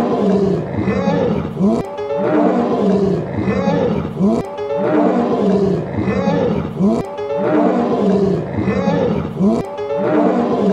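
Lion roaring over and over, about one roar a second.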